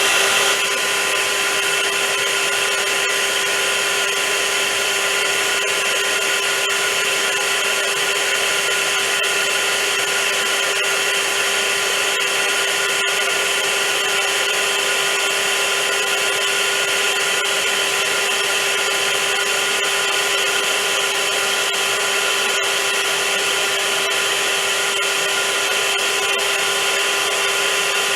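Vacuum cleaner motor running steadily: an even, loud rushing of air with a constant motor whine.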